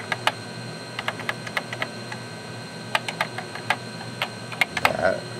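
Keys being typed on a Commodore 64 keyboard: a run of irregular key clicks, with a louder, duller knock just before the end.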